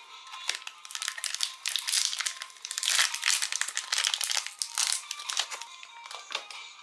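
Thin foil wrapper crinkling and tearing as it is peeled open by hand, a dense crackle that is loudest in the middle and dies away near the end.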